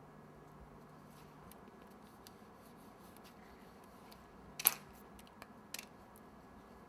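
Knife cutting through a chilled sheet of chocolate on a board: faint scraping and small ticks, with one sharp click a little under five seconds in and a couple of lighter clicks about a second later.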